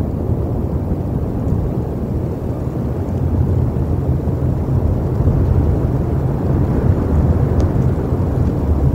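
Wind buffeting an outdoor microphone: a steady low rumble that swells a little, with one faint tick late on.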